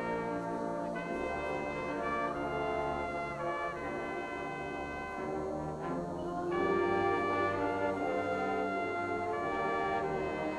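Marching band playing held brass chords over a low bass line, the chords shifting every second or two and swelling louder about six and a half seconds in.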